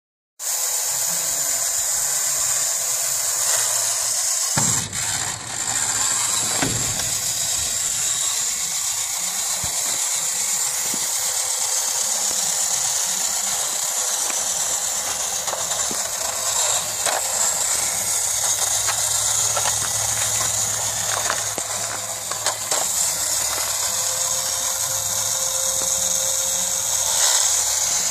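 Bandai tin toy Chevrolet police car's clockwork-style gear mechanism running steadily, a continuous whirring, ratcheting clatter as the toy moves along concrete.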